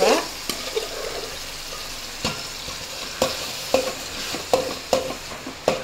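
Raw rice sizzling in hot ghee with spices and ginger-garlic paste in a metal pot as a steel spoon stirs and spreads it: a steady hiss broken by several sharp clinks of the spoon against the pot.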